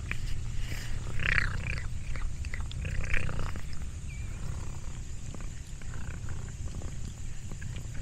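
Domestic cat purring steadily close to the microphone, with scattered small clicks and crackles over it.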